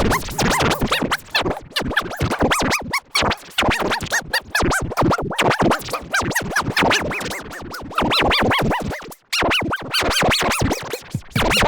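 Digitally processed audio effect: sound chopped into rapid stuttering fragments with quick swooping pitch bends, like record scratching. There is a brief break about nine seconds in.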